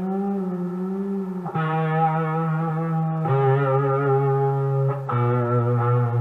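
Modded Monoprice Mini Cali electric guitar played through overdrive: held notes with vibrato, each new note struck lower than the last, about every one and a half to two seconds.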